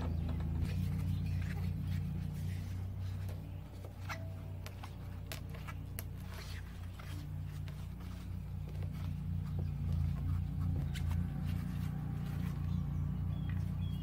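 A steady low machine hum, with scattered faint clicks and scrapes as the brass fitting of a compression tester's hose is screwed by hand into a mower engine's spark-plug hole.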